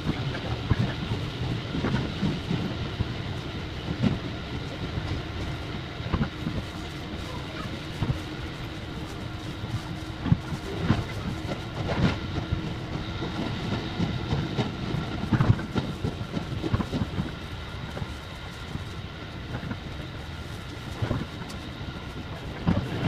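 Running noise inside a JR 117-series electric train's passenger car, with wheels clacking over rail joints in quick succession. The audio is sped up fourfold.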